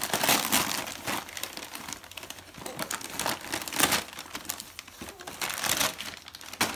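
Wrapping paper and tissue paper crinkling and rustling in repeated bursts as a present is torn open and unwrapped by hand.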